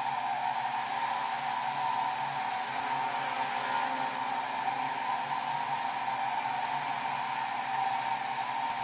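Quadcopter with four 910kv brushless motors spinning 10x3.8 APC propellers, whining and buzzing steadily as it hovers and drifts.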